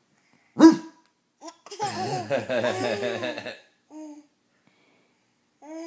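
A baby with the hiccups: one sharp hiccup about half a second in, then laughter and babbling for nearly two seconds, followed by two short, clipped voice sounds near the end.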